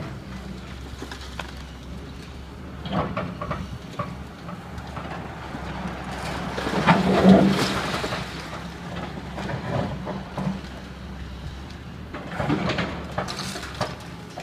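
Cat hydraulic excavator's engine running steadily while its bucket tears into the building, with timber and rubble cracking and crashing down in spells. The loudest crash comes about seven seconds in, with others about three seconds in and near the end.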